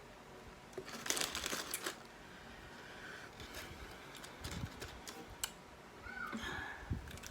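Eating and food-handling sounds close to the microphone during a Wingstop wings-and-fries meal: a dense patch of crackly clicks about a second in, then scattered clicks and a few soft low thumps.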